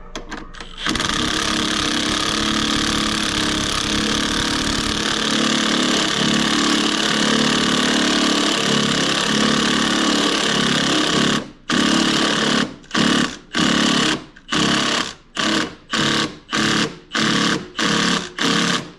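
Impact wrench running engine-mount bolts in: one long continuous hammering run of about ten seconds, then about a dozen short trigger bursts as the bolt is snugged down.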